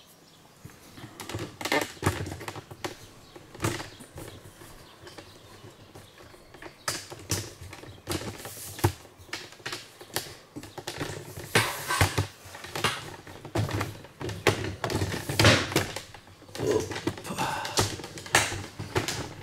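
Irregular clicks, taps and scrapes of hands and small parts being handled inside the wooden cabinet of an old electrical unit during a teardown.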